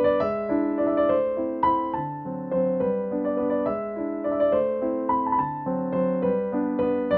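Background music: a piano melody over held chords.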